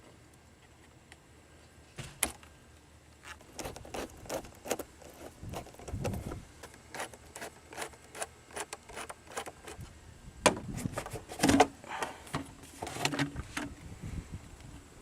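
Parts and tools being handled under a car's hood: an irregular run of clicks, knocks and rattles as components are taken off to reach the oil filter, the loudest knocks about eleven and a half seconds in.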